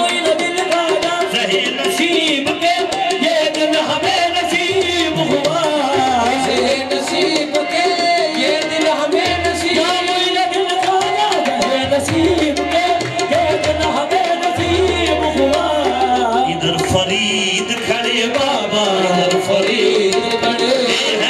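Live qawwali: a qawwali party singing to harmonium with tabla drumming, the music running on without a break.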